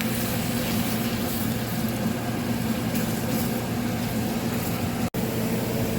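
Fajita chicken and vegetables sizzling and simmering in a pan just after a splash of water and seasoning, over a steady electrical hum. The sound cuts out for an instant about five seconds in.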